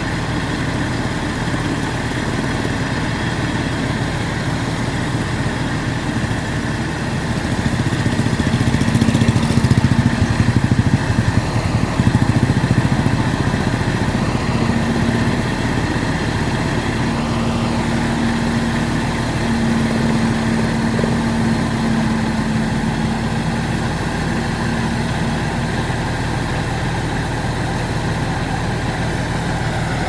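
Rice combine harvester's engine running steadily. It grows louder for a few seconds about eight seconds in, and a steady hum sits over it on and off through the middle.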